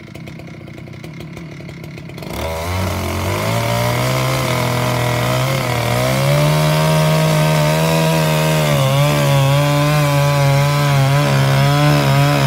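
Chainsaw with a six-foot bar on a homemade chainsaw mill, idling, then throttled up about two seconds in and running at high speed through the cut. Its pitch wavers and dips under the load of the wood.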